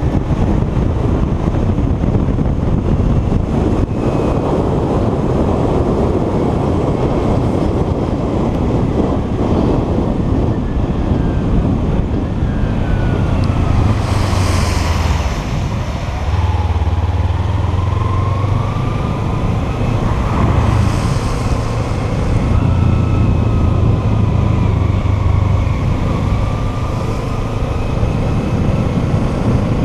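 Kawasaki Ninja 300's parallel-twin engine running under way, mixed with a steady rush of wind and road noise on a wet road. In the second half the engine note rises and falls, and there is a short hiss about halfway in as a bus passes.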